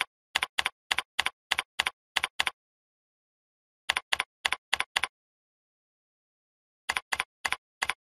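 Computer keyboard keystrokes, sharp even clicks about four a second, in three runs of typing with pauses of over a second between them.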